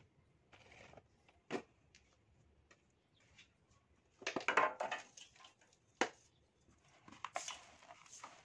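Dry soil being handled in a plastic tub: scattered crackles and a few sharp knocks, with a louder crunching rustle about halfway through. Near the end this gives way to a steady crackly hiss of fine soil sifting through a mesh sieve.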